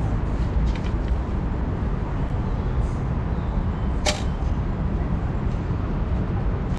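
Steady low rumble of background noise in the station, with one short, sharp click or swish about four seconds in.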